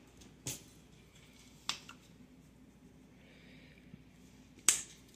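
Three sharp plastic clicks, the loudest near the end, from a spice jar's flip-top cap and the jar being handled while seasoning is shaken into a glass mixing bowl.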